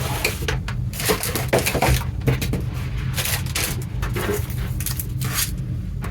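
Packaging being handled and unwrapped: irregular crinkling and rustling with a few light knocks, over a steady low hum.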